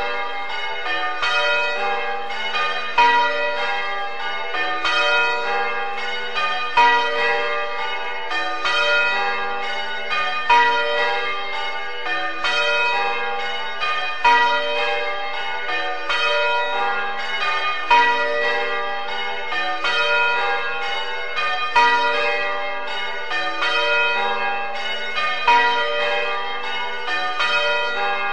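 Church tower bells ringing in a steady, continuous sequence of strokes, with a louder stroke coming round about every two seconds.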